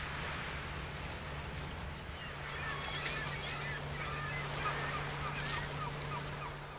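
A flock of birds calling, a rapid string of short calls that thickens about two and a half seconds in and fades near the end, over a steady low hum. Everything stops abruptly at the end.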